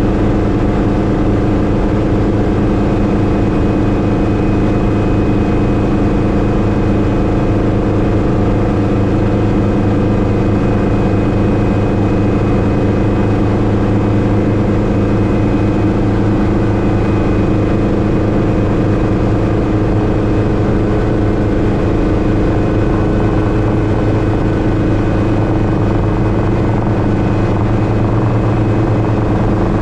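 Hughes 269C (Schweizer 300C) helicopter in low-level cruise, heard from inside the open-view cockpit. Its four-cylinder Lycoming piston engine and rotor make a loud, steady drone with a constant pitch.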